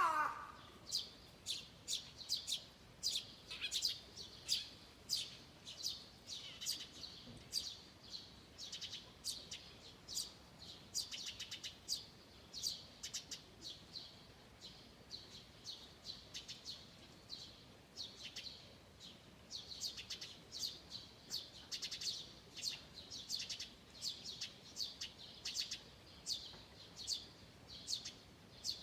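Songbirds chirping: a continuous run of short, high, sharp chirps, about two or three a second.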